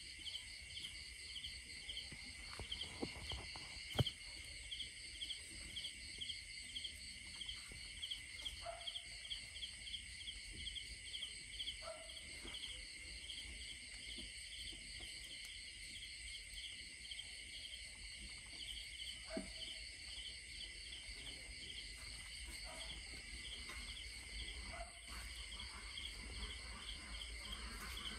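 Night insect chorus: crickets chirping in quick, even pulses, about three a second, over a steady high trill. Now and then come short crackles and snaps of dry stalks and litter being disturbed, the sharpest about four seconds in.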